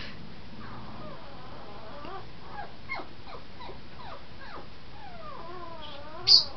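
A pug whining in a run of short falling whimpers, then a longer wavering whine near the end: his usual crying when the pet birds are out and he can't get to them. A loud, brief high squeak cuts in just before the end.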